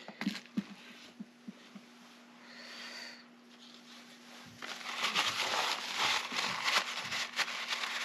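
A few light clicks of the metal lock case being handled, then from about halfway a rapid scratchy rubbing as a paper towel wipes out the dirty safe-lock case.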